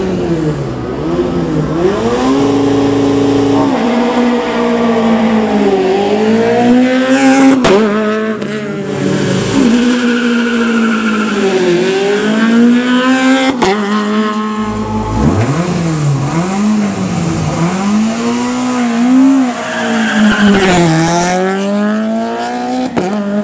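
Rally car engine revved hard again and again, its pitch climbing and falling every second or two, with some tyre squeal.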